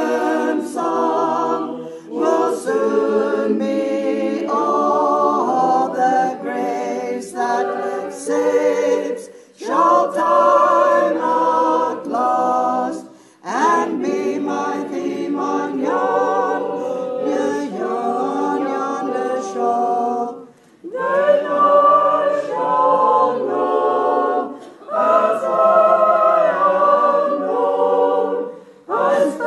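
A choir singing unaccompanied, in phrases several seconds long separated by short pauses.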